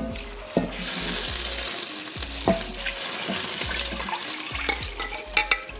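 Chicken broth poured into a hot enameled cast-iron Dutch oven of beans, sausage and sautéed vegetables, splashing and sizzling as the liquid hits the hot pot: a steady hiss from about a second in until near the end. A few light knocks near the end.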